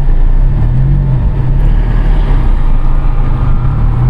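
Car engine and road noise heard from inside a moving car: a loud, steady low rumble with a droning hum that rises and falls slightly.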